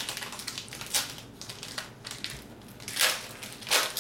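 Yu-Gi-Oh cards and foil booster-pack wrappers being handled: a handful of short crinkling, rustling bursts, the two loudest about three seconds in.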